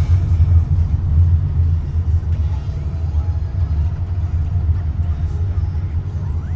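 Steady low rumble of engine and road noise inside the cabin of a Honda BR-V being driven, easing off slightly near the end.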